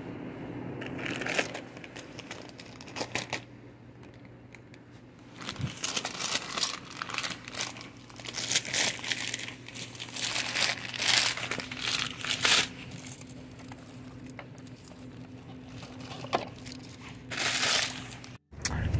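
Plastic candy bags crinkling as they are picked up and handled, in irregular bursts through the middle and again near the end, over a low steady hum.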